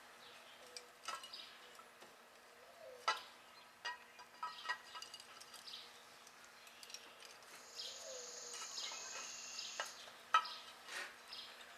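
Cast-iron halves of a tractor power director clutch clinking and knocking together as the back casing is wiggled down onto the pressure plate and springs. The fit is snug. A handful of sharp metal clinks is heard, the loudest about three seconds in and again about ten seconds in.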